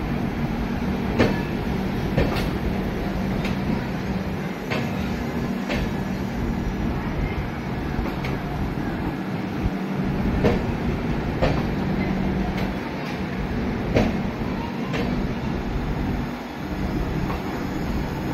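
Red-and-grey LHB passenger coaches of a departing express rolling past on the platform line: a steady rumble under a low hum, broken by sharp clacks every second or few as the wheels cross rail joints.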